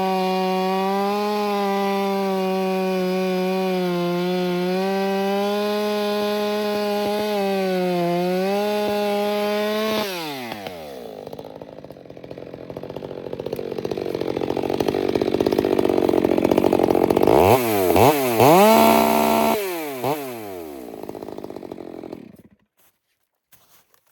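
Ported Stihl MS 462 two-stroke chainsaw at full throttle through a cut in wet spruce, its pitch steady with slight dips as the chain loads. About ten seconds in the throttle is let off and the revs fall, a rough noisy stretch follows, then a few quick revs, a drop to idle and the engine stops.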